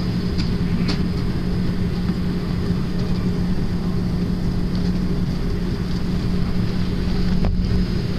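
Airliner cabin noise while taxiing: the jet engines at low taxi power, a steady low hum with a faint high whine above it. A couple of faint clicks in the first second.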